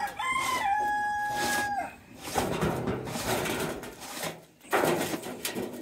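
A rooster crows once, its long final note held steady for over a second before breaking off. Two stretches of noise follow.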